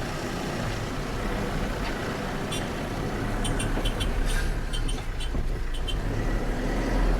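Truck engine running at low revs as the truck reverses, with a steady low rumble. A few faint short high ticks come in the middle.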